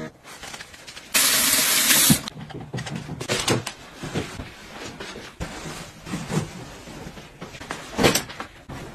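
Tap water running into a bathroom sink for about a second, the loudest sound here, followed by soft rustling and muffled pats of bedding and pillows being shaken and plumped, and a cloth dropped into a laundry basket near the end.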